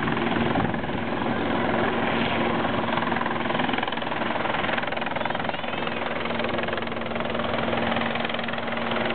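Helicopter hovering: steady rotor and turbine noise with a constant low hum.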